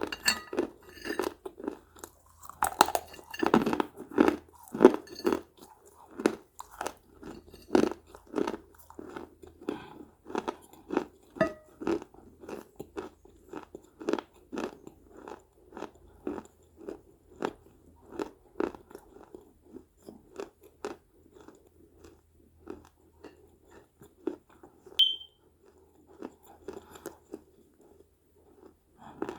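Close-miked crunching and chewing of small pieces of baked clay pot, sharp cracks coming thick and fast at first, then thinning out to slower chewing. A brief high-pitched chirp sounds once near the end.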